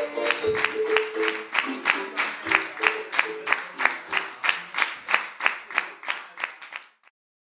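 Rhythmic hand-clapping in a steady beat, about four claps a second, over a plucked-string tune. The tune drops out about halfway through. The clapping then fades and stops about seven seconds in.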